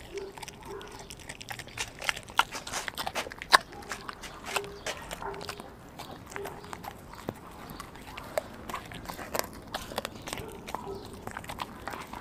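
A dog chewing and crunching raw chicken on the bone: irregular sharp crunches and clicks, densest and loudest between about two and four seconds in, with one loud crack in the middle of that stretch.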